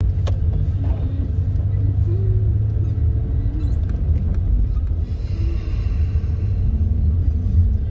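Steady low rumble of a car on the road, heard from inside the cabin while driving, with faint voices in the background.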